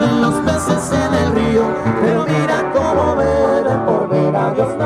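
Live band playing a tune on acoustic guitars, with a sousaphone walking the bass in separate low notes and a saxophone.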